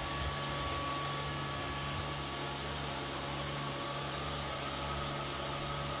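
Neato D7 robot vacuum running, a steady whirring hiss of its suction fan and brush with a faint high whine.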